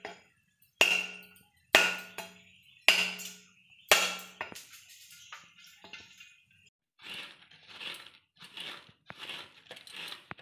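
A heavy curved iron blade strikes a husked coconut four times to crack its shell, each hit a sharp knock with a short ring. After a pause comes a run of rhythmic scraping strokes, about one and a half a second, as the coconut flesh is grated.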